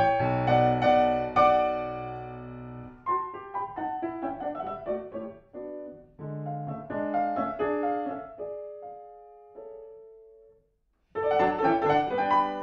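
Grand piano played solo in classical style: loud chords over a held bass, then quieter phrases that die away to a brief silence about eleven seconds in, before loud playing resumes near the end.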